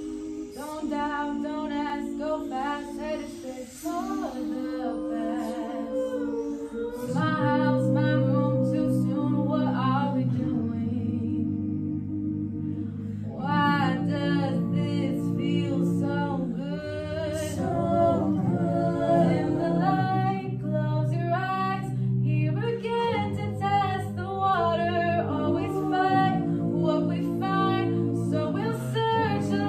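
A mixed a cappella group of men and women singing in close harmony, held chords under a lead melody. A deep bass voice comes in about seven seconds in.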